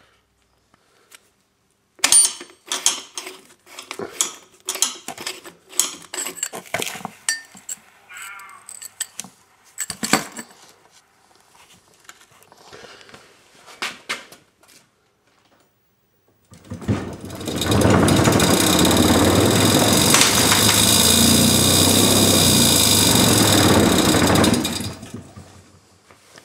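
A run of knocks and clicks for the first several seconds. Then, about sixteen seconds in, the vibratory core sand mixer's vibrator starts and runs loud and steady for about eight seconds before stopping.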